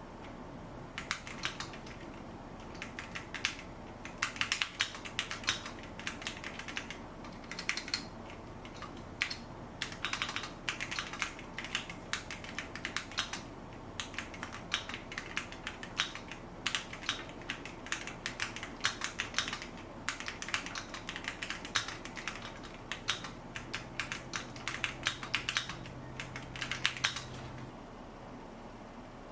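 Typing on a Keychron Q1 Pro mechanical keyboard with an aluminium body: bursts of rapid key clacks with short pauses between them, stopping a couple of seconds before the end.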